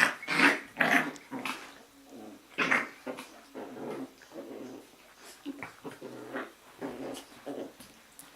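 Jack Russell Terrier puppies growling and giving short yips as they play-fight, in a run of short calls that are loudest in the first second and again a little before three seconds in.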